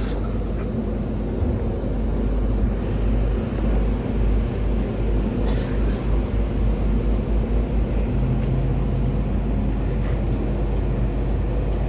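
Large DJ sound system loudspeakers during a sound check, playing bass-heavy sound so loud the recording is distorted. There is a run of rapid booming bass pulses in the middle.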